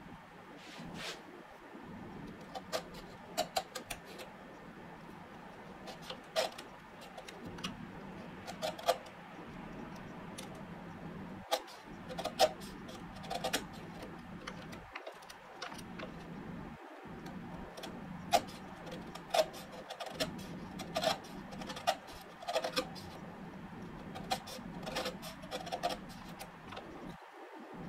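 Narrow bench chisel pared by hand into a saw kerf in hardwood: irregular sharp clicks and crackles as the edge cuts and splits away wood fibres.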